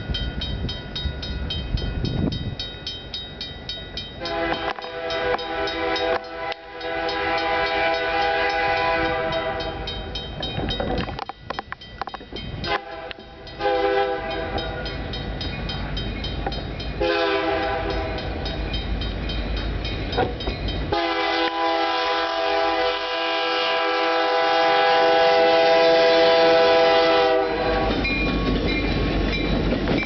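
Canadian National freight locomotive's air horn sounding four long blasts for a level crossing, the last one the loudest, with a bell ringing steadily at the start. Near the end the horn stops and the locomotive's engine rumble and wheel noise take over as it reaches the crossing.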